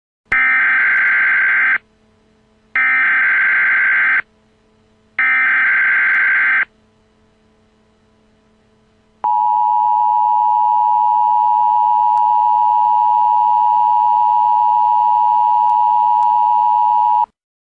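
Emergency Alert System tones: three short bursts of warbling SAME data-header tones, each about a second and a half long with a second's gap between them, then after a short pause the steady two-tone EAS attention signal held for about eight seconds before cutting off.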